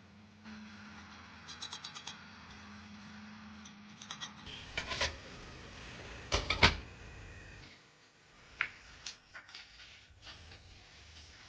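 Clicks, taps and knocks. A quick run of clicks comes about a second and a half in, and the loudest knocks come around the middle. A low steady hum runs under the first few seconds.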